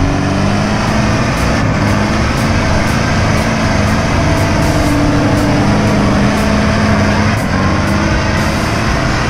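Off-road truck engine running under load as the truck drives across rough ground, its pitch shifting a little as it changes speed.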